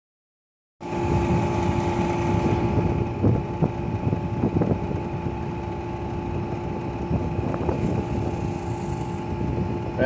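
Air conditioner condensing unit running with its two-stage compressor in second stage: a steady hum with a noisy rush and two steady tones, starting abruptly about a second in.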